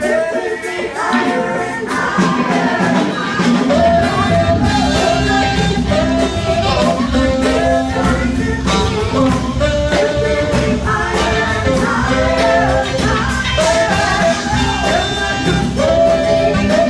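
Live worship band playing a full rock-style arrangement with lead and backing vocals, electric and acoustic guitars, bass and drum kit. The bass and drums come in fuller about four seconds in.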